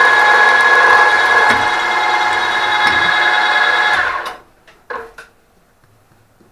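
Workshop machine tool running steadily with a high whine, switched off about four seconds in and running down quickly, followed by a couple of light clicks and knocks.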